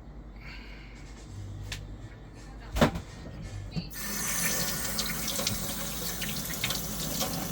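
A single sharp knock, then a tap turned on about four seconds in, with water running steadily into a sink.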